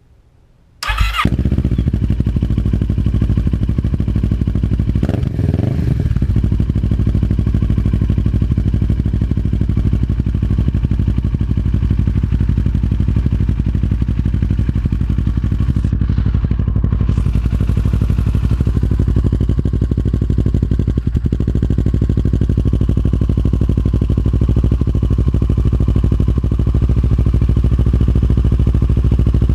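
2008 Kawasaki Versys 650's parallel-twin engine starting about a second in, then idling steadily through a Yoshimura aftermarket exhaust.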